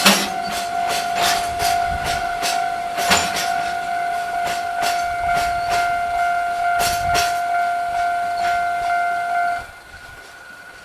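Freight train of empty cement wagons rolling slowly, its wheels clacking irregularly over rail joints, with a steady high tone held over it. Both the train and the tone cut off suddenly about a second before the end.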